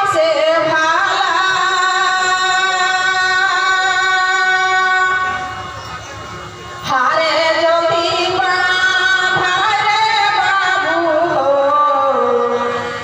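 A woman singing a traditional Ahira folk song through a microphone and PA, in long drawn-out held notes on the words 'ahire ba'. There are two long phrases with a brief quieter gap between them, and the second fades near the end.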